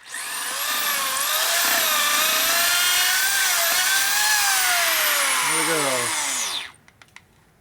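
Electric drill running with a carbide bit boring through a hardened bolt. The motor whine wavers in pitch under load, then winds down in a falling glide as the trigger is let go, just before the end.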